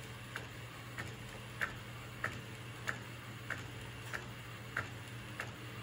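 Epson SureColor P405 DTF printer printing on roll film: a short click about every 0.6 seconds as the print-head carriage sweeps back and forth and the film steps forward, over a steady low hum.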